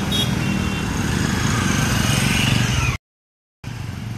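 Motorcycle engine running close by over steady street traffic noise, with a rising whine about two seconds in. The sound cuts off suddenly about three seconds in and comes back quieter.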